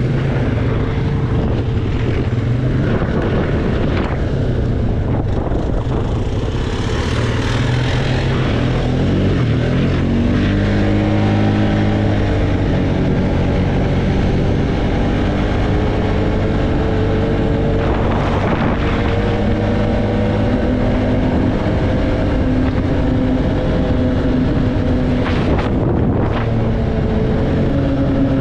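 ATV engine running steadily while being ridden, its pitch dropping and climbing again about ten seconds in as the throttle changes.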